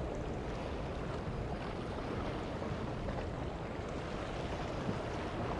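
Steady rumble of wind on the microphone over choppy water, with a boat's engine running low beneath it.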